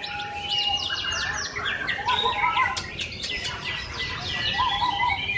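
Several caged white-rumped shamas (murai batu) singing at once in contest, their whistled phrases, quick sweeps and trills overlapping continuously.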